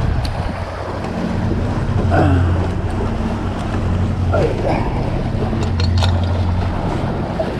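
Wind buffeting the microphone and water washing past the bow of a sailing catamaran, with a low steady hum underneath.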